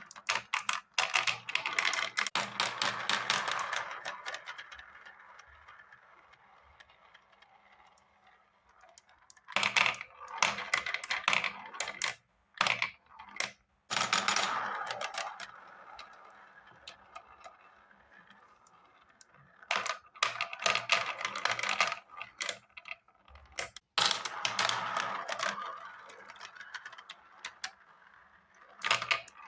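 Marbles clattering and rolling down a marble run, in about five bursts of rapid clicks, each trailing off into a fading rolling sound.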